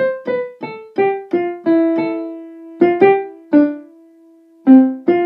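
A keyboard melody of piano-like notes struck one at a time, each ringing and then fading. The notes come quickly at first, then more slowly, and a last note is held and fades out.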